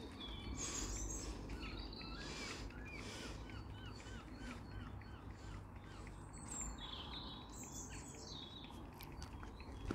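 Faint, distant level crossing alarm sounding as its barriers lower: a run of evenly repeated rising-and-falling tones, about four a second, over a steady low background rumble.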